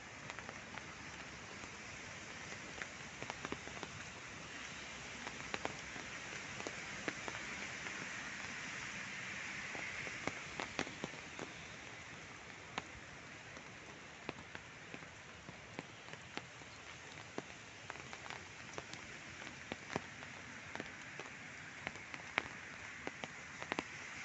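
Steady rain falling on a gravel path and leafy hedges, a continuous hiss dotted with frequent sharp drop ticks, swelling a little in the middle.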